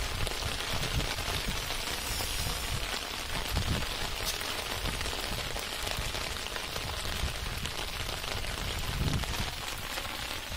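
Steady rain falling on shallow floodwater, an even hiss, with a few dull low knocks scattered through it.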